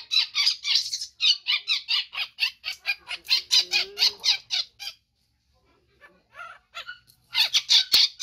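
Newborn baby macaque screaming in rapid, high-pitched squeals, about five a second, in distress at being bathed. The screaming breaks off about five seconds in and starts again shortly before the end.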